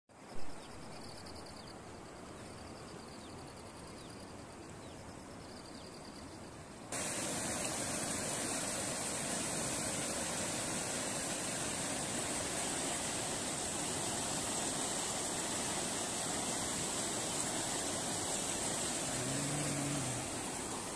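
Released dam water rushing through a channel: a loud, steady rush of whitewater that starts suddenly about seven seconds in and holds to near the end. Before it comes a quieter stretch with faint repeating high-pitched calls and a brief knock just after the start.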